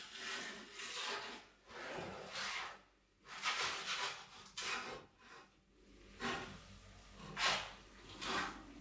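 Wooden oven peel scraping across the floor of a wood-fired oven as clay cooking pots are slid onto it: a series of separate rasping scrapes, about eight in all.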